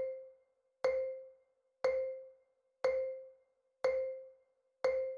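Quiz countdown timer ticking down the seconds: a short pitched tick, the same note each time, once a second, each fading quickly.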